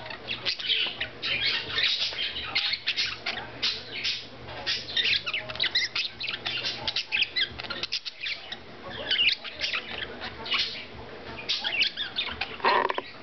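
Budgerigars warbling and chattering: a steady stream of rapid, scratchy chirps and clicks, with one louder, lower squawk near the end.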